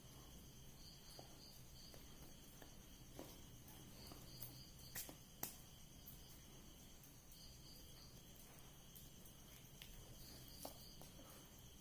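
Near silence with faint insect chirring: a steady high drone and a short pulsed chirp that repeats every three to four seconds, with a few light clicks.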